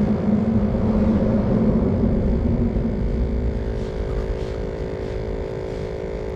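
A vehicle rumbling across the bridge overhead, loudest in the first three seconds and then fading. A steady hum runs underneath.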